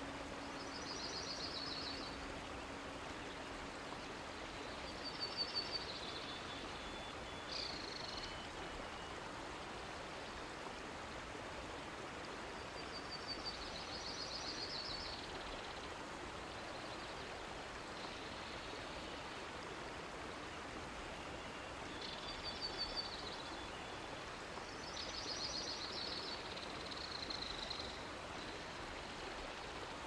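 Songbird singing short trilled phrases every few seconds over a steady rush of running water, an outdoor nature ambience. A held low musical chord fades out in the first few seconds.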